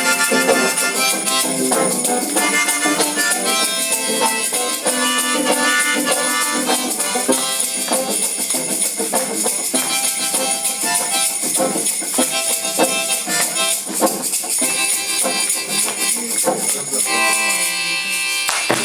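Live acoustic instrumental music closing a song: a melody of held, changing notes over a steady shaker rhythm, ending on sustained chords near the end.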